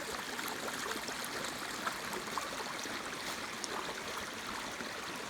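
Running water flowing steadily, with small splashing ticks scattered through it.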